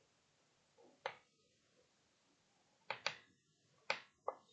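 Chalk on a blackboard while writing: five faint, short, sharp taps spread over a few seconds, two of them close together about three seconds in.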